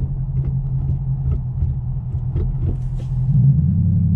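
2014 Mustang GT's 5.0 L V8 engine running steadily while the car drives, heard from inside the cabin. About three seconds in the engine gets louder and its pitch changes.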